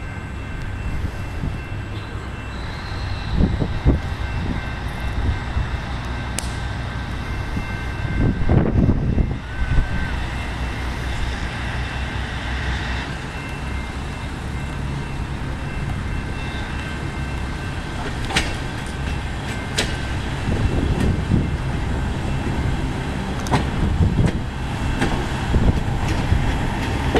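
A train rolling in: the steady low rumble of the locomotive's engine and the cars moving Monon Business Car #2 along the track, with a few sharp clicks along the way.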